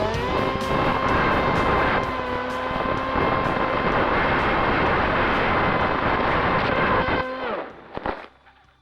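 Bixler 1.1 RC plane's electric pusher motor and propeller whining with a steady pitch under a rush of wind noise. The pitch rises briefly at the start, then falls away as the motor winds down near the end, followed by a short knock and quiet.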